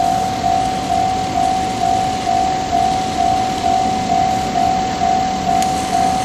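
Japanese railway level-crossing warning bell, one mid-pitched tone struck about twice a second, each strike fading before the next. It signals that a train is approaching and the crossing is closed.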